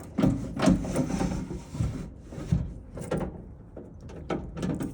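Handling noise at a pickup truck's door: an irregular run of knocks, scrapes and rattles, with a sharp knock about two and a half seconds in, as the inner door is worked on to reach the door-handle mount.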